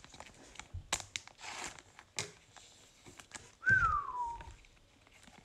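Soft crinkling and small clicks of plastic as a trading card is slid into a penny sleeve and a rigid top loader. A little past halfway comes one short whistle that falls in pitch, the loudest sound here.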